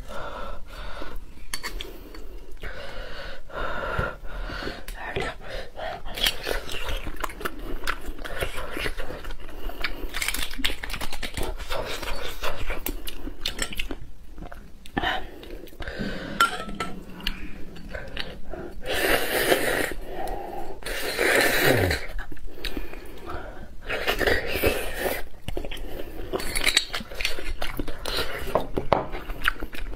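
Close-miked eating of roasted beef marrow bones: knife and spoon clicking and scraping against the bone, with wet chewing and sucking of the marrow. The loudest wet bursts come in a cluster about two-thirds of the way through.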